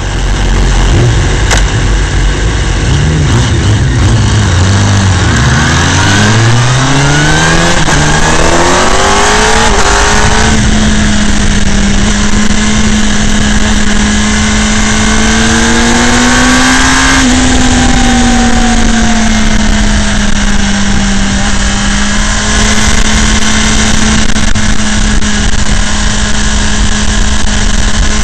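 Yamaha R1 (RN12) 998 cc inline-four engine accelerating hard through the gears, each upshift dropping the revs before the next rising run. From about ten seconds in it holds a steady high note at speed, rising briefly and settling again, over a constant low rumble of wind on the onboard microphone.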